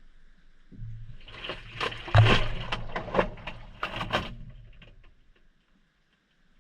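Maytag front-loading washer on a delicate cycle, heard from inside the drum: the motor hums as the drum turns, and wet clothes and water slosh and flop for about three seconds, then the drum stops.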